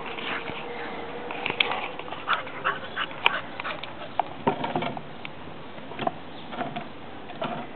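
Staffordshire bull terriers making short, soft whines among scattered clicks and knocks.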